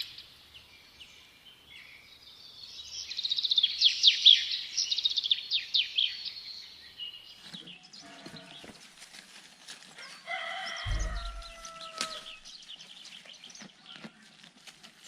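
Small birds twittering in quick, high chirping trills for several seconds, then a rooster crowing once, about two-thirds of the way in, over farmyard background noise.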